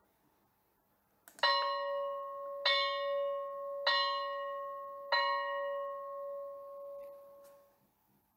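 A single bell struck four times, about one and a quarter seconds apart, each stroke ringing on at the same pitch and fading. After the last stroke the ringing dies away.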